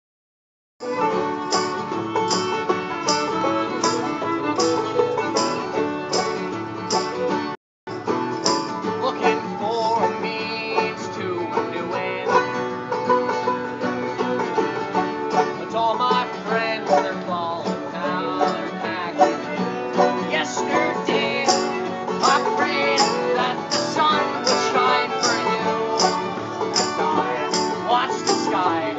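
Bluegrass string band playing with a steady rhythm: fiddle, banjo and two strummed acoustic guitars. The sound starts about a second in and cuts out for a moment about eight seconds in.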